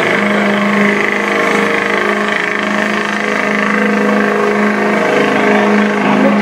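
Diesel pickup truck engine running hard under full load, pulling a weight-transfer sled: a loud, steady drone.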